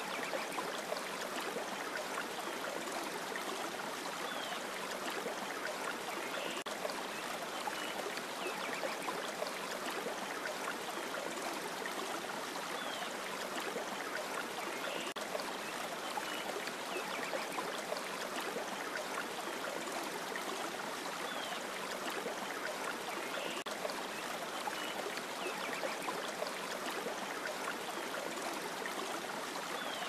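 Shallow rocky creek running steadily, its water spilling over stones in a small riffle into a pool.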